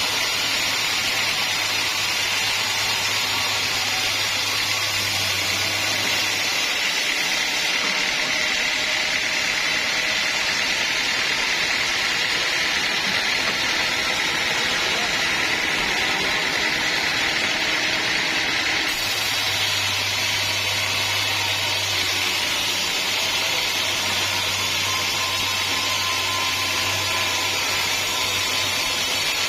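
Sawmill saw running through a teak log: a steady, loud, high-pitched cutting noise. A low motor hum drops out about six seconds in and comes back about two-thirds of the way through.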